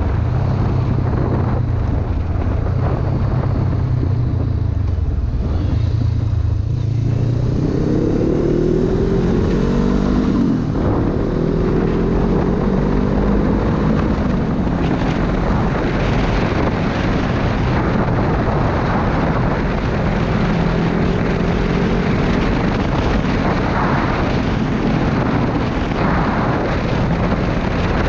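2016 Honda CB500F's parallel-twin engine accelerating at road speed, under steady wind rush on a helmet camera. The engine note climbs about a quarter of the way in, breaks off briefly, then climbs again and levels out.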